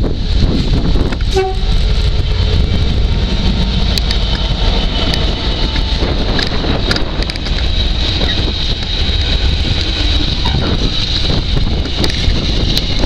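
Freightliner Class 66 diesel freight locomotive passing close by, then a train of container flat wagons rolling past with a steady rumble, repeated wheel clicks over the rail joints, and a steady high-pitched squeal that grows louder near the end.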